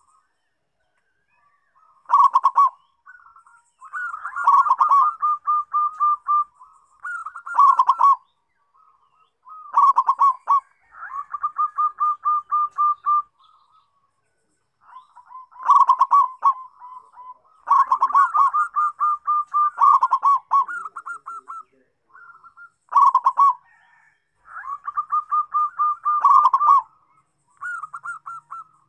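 Zebra dove (perkutut) singing: repeated phrases of rapid staccato cooing notes, each phrase a second or two long and ending on a louder, lower coo, with short pauses between phrases.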